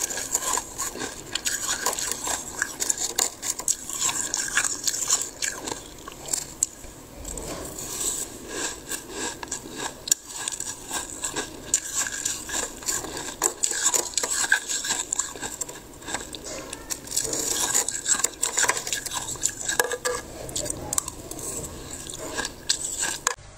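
Metal spoon scraping thick, crusty freezer frost: a run of rapid, irregular scratching and crunching strokes that stops abruptly near the end.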